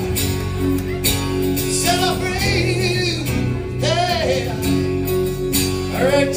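Live acoustic guitar playing held chords under a man's wordless sung notes that waver as they are held.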